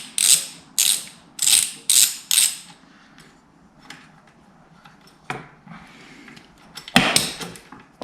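Socket ratchet on an extension bar being worked back and forth to loosen a bolt, a burst of rapid clicks on each stroke, five strokes in the first three seconds. Then it goes quiet, with a sharp knock about five seconds in and a louder clatter near the end.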